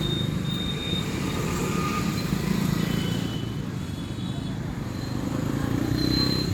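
Road traffic noise: a steady rumble of passing vehicles with faint thin high tones drifting through.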